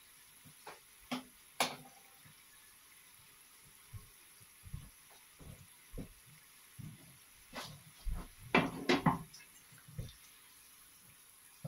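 Vegetable pitas deep-frying in hot oil in a pan: a faint steady sizzle with scattered pops and clicks. A cluster of louder knocks and clatter about two-thirds through comes as a pita is turned in the pan.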